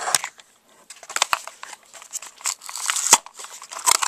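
Cardboard packaging being handled and pulled open: irregular scraping and rustling with scattered sharp clicks, and a sharp knock about three seconds in and another near the end.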